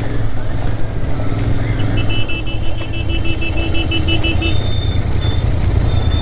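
Royal Enfield Interceptor 650's parallel-twin engine running steadily under way. From about two seconds in until about four and a half, a rapid high-pitched beeping comes through, about six pulses a second.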